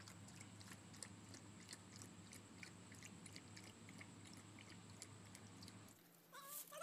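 A puppy lapping milk from a steel bowl: faint, quick, irregular wet lapping clicks. Near the end, a couple of short high cries from a young animal.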